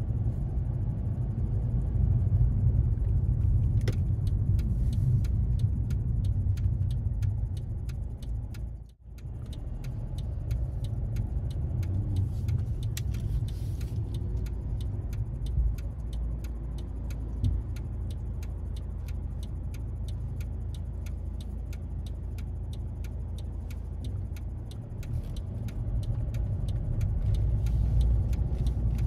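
Car driving on a town road, heard from inside the cabin: a steady low rumble of engine and tyre noise, with faint regular ticks and a brief drop in level about nine seconds in.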